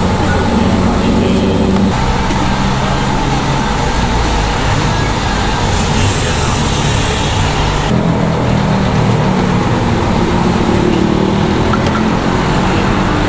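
Steady street traffic: vehicle engines running and passing close by, with a hiss lasting about two seconds around the middle.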